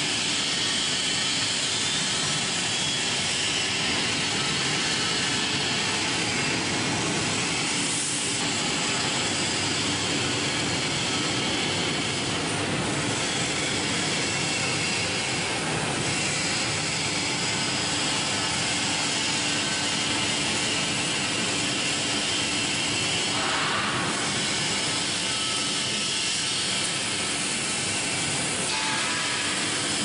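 Industrial bubble-type strawberry washing machine running: the air blower keeps the water in the tank churning with bubbles, making a loud, steady noise with a faint low hum beneath it.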